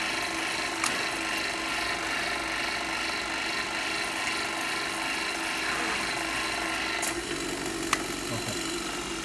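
Vacuum pump of a wiped film distillation unit running with a steady mechanical hum and hiss. Sharp metallic clicks come from the valve fittings about a second in and twice near the end.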